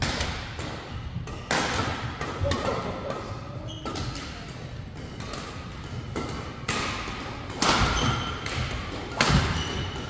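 Doubles badminton rally on a wooden sports floor: several sharp racket strikes on the shuttlecock a second or more apart, with thudding footsteps and brief high shoe squeaks between them.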